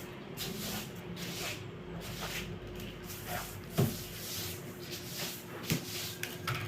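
A run of short rustles and soft knocks, the sharpest about four seconds in and another near six seconds, over a faint steady hum.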